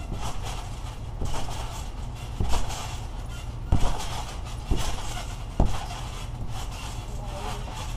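Bodies landing on a trampoline mat: about five dull thumps roughly a second apart as jumpers bounce and land knee drops. A steady low rumble runs underneath.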